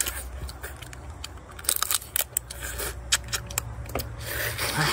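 Irregular sharp clicks and crackles of a large shrimp's shell being cracked and peeled by hand.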